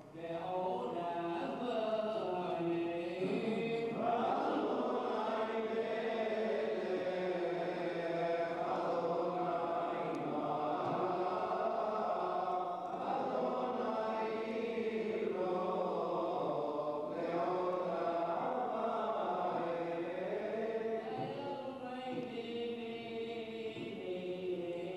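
A synagogue congregation chanting Hebrew prayers together, many voices singing in an unbroken, gliding melody.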